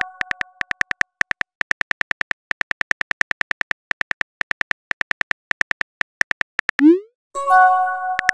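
Texting-app typing sound effects: a fast run of keyboard clicks, about seven a second, as a message is typed. Near the end a short rising pop as the message is sent, followed by a bright chime of several notes.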